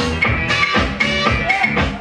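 Dance music played by a DJ, loud, with a steady drum beat of about four hits a second.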